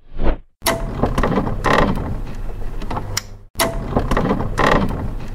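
Logo-intro sound effect: a short whoosh, then a clicking, whirring mechanical effect over a steady low hum. The same roughly three-second effect plays twice, the second beginning about halfway through.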